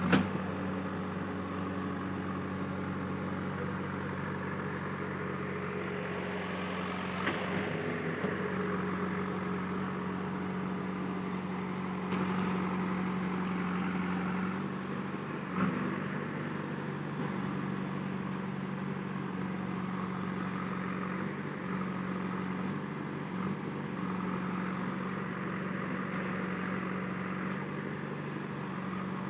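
Diesel engine of a JCB backhoe loader running steadily, with a brief swell about seven seconds in and a few faint knocks.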